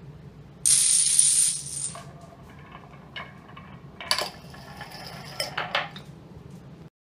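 Small hard pieces of a homemade Rube Goldberg machine clattering on wood and concrete: a dense rattle of falling dominoes about a second in, then scattered clicks and knocks of a marble and wooden parts, with a sharp clack about four seconds in.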